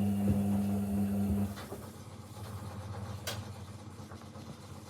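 Washing machine motor humming steadily, then cutting off about a second and a half in, leaving a fainter rumble and a single click.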